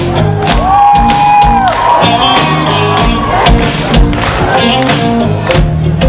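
Rock band playing live: a steady drum beat, bass and electric guitar, with a long held melody note and then a curving melodic phrase on top. The crowd can be heard under the music.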